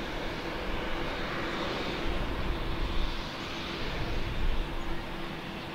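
Boeing 787-8 airliner's GEnx turbofan engines running at low ground power, a steady jet hiss with a faint hum. Low rumbling swells from about two seconds in.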